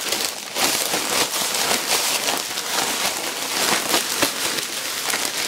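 A jumbo 2.5-gallon Ziploc slider bag holding a pork belly and dry rub, tossed and kneaded by gloved hands: the plastic crinkles and rustles continuously in fine crackles as the rub is worked over the meat.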